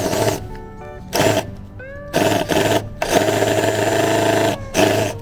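Background music with a strong rhythmic beat.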